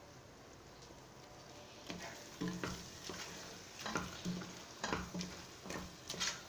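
A spoon stirs tomato puree and onion masala in a stainless steel pot. From about two seconds in it scrapes and knocks against the pot's sides and bottom in irregular strokes, over a faint sizzle from the pot.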